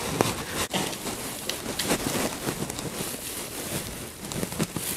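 Hands working a loose mound of excelsior (wood wool) on a chair seat: a steady crackly rustling of the fine wood shavings.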